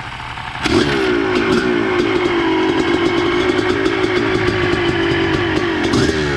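Honda CR250R's single-cylinder two-stroke engine, freshly rebuilt, running. It jumps to higher revs under a second in, holds steady, then is blipped up and down near the end.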